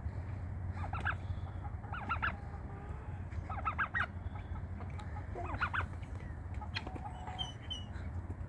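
Chickens clucking: short bunches of clucks every second or two, over a steady low hum.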